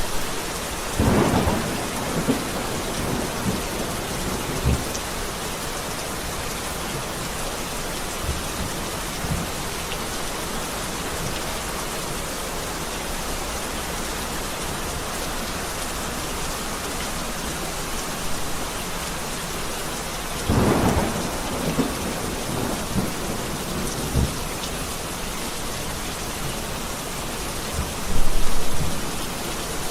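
Heavy rain falling steadily, with a thunderclap about a second in and another about two-thirds of the way through, each trailing off in rumbles. A louder, deep rumble of thunder swells near the end.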